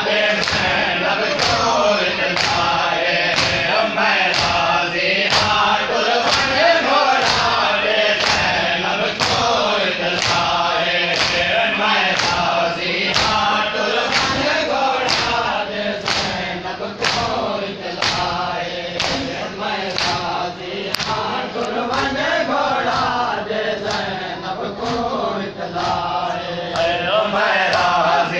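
A crowd of men chanting a noha together while beating their chests in matam, the hand strikes landing in a steady beat about one and a half times a second under the singing.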